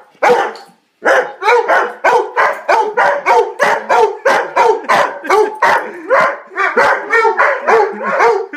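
Dogs barking: a single bark, a brief pause, then a fast unbroken run of barks at about three a second.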